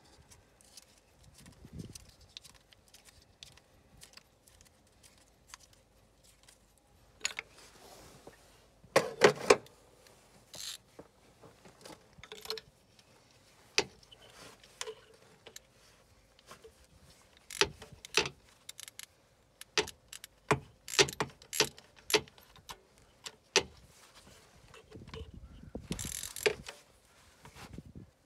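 Hand tools clinking on metal in an engine bay: a spark plug socket on an extension knocking in the plug well and a ratchet being fitted and turned. It comes as scattered clicks and taps, with a louder clatter about nine seconds in and a short rustle near the end.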